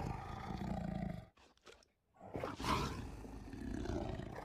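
Recorded tiger roar played by the Google 3D animal tiger through a phone speaker, twice, with a short pause between.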